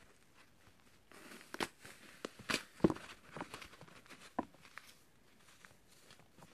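Dry, unsoaked floral foam being crushed and crumbled in the hand. A soft gritty rustle starts about a second in, with a run of sharp crunching crackles that are loudest about three seconds in and then thin out.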